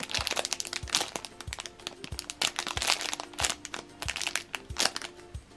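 Clear plastic bag around a foam squishy toy crinkling as it is handled, in many irregular small crackles. Soft background music with a steady beat plays underneath.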